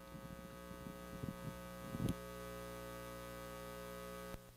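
Faint, steady electrical mains hum, with a few soft clicks in the first two seconds; the hum cuts off just before the end.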